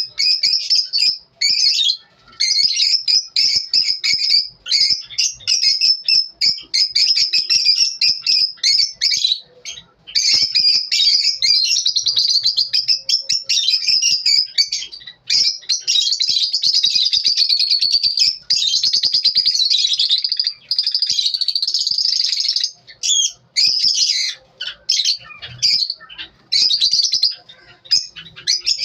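Lovebirds chirping, a dense, rapid stream of shrill high-pitched chirps and squawks that runs on with only brief pauses.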